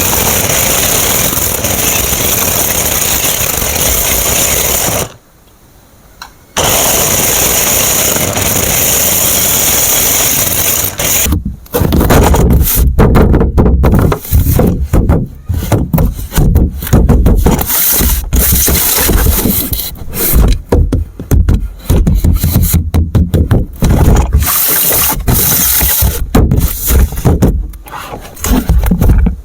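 Toy remote-control car's small electric motor running with a steady high whine, cutting out briefly about five seconds in. After about eleven seconds it gives way to choppy, stop-and-start running with heavy low rumbling.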